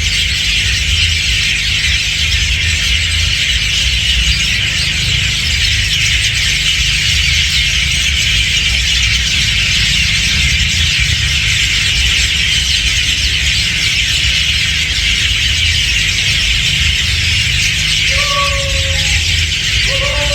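A flock of hundreds of birds calling at once, a dense, continuous high chatter of overlapping squeaks, over a steady low rumble. Near the end come two short tones that fall in pitch.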